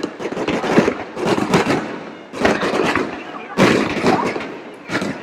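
Fireworks going off in rapid volleys of sharp bangs and dense crackling, with fresh loud bursts about two and a half and three and a half seconds in. People's voices can be heard among the bangs.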